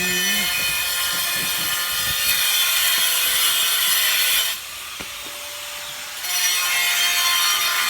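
A power tool running with a loud, steady high whine and hiss. It eases off about four and a half seconds in, then comes back up to full about six seconds in.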